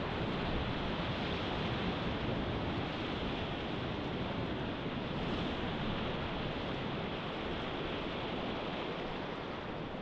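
Steady rushing of river whitewater, an even, unbroken noise.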